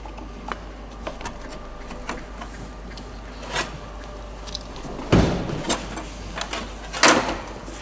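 Battery-charger cables and clamps being handled, with scattered small clicks and knocks and two louder clunks about five and seven seconds in.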